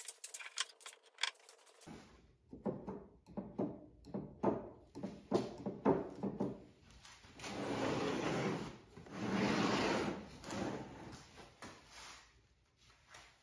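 Plywood parts of a homemade golf ball dispenser knocking and clacking as its lever mechanism and panels are handled, with two longer rubbing, sliding noises of about a second each a little past the middle.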